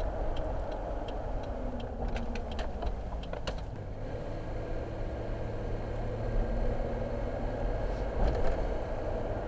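Car driving, heard from inside the cabin: a steady low road and engine rumble. A turn indicator ticks about twice a second for the first second and a half, then a short flurry of clicks and rattles follows, with a few more clicks near the end.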